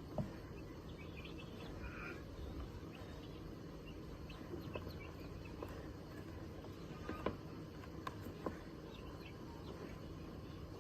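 Call duck giving scattered soft, short calls, with a few sharp clicks, over a steady low background noise.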